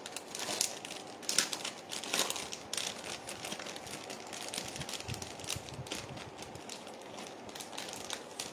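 Packaging crinkling and rustling in irregular crackles as hands rummage for and unwrap the next hair accessory, with a few sharper rustles in the first three seconds.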